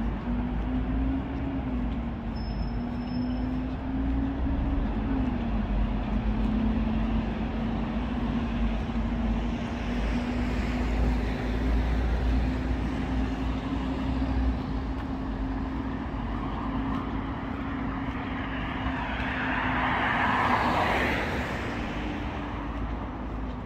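Street traffic: a steady low rumble with a held engine hum, and a vehicle passing closer, swelling and fading near the end.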